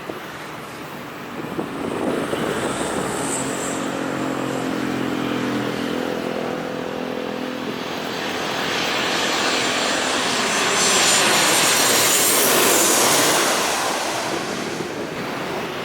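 Boeing 737-800's CFM56-7B jet engines on a landing approach: a steady engine hum at first, then jet noise growing louder to a peak about eleven seconds in and falling away as the airliner passes.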